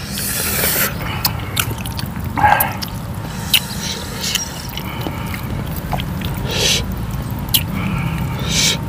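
Close-miked mukbang eating sounds: wet chewing, lip smacks and squelches as saucy chicken and boiled bok choy are eaten by hand. Sharp little clicks and short wet smacks come every second or so, over a steady low rumble.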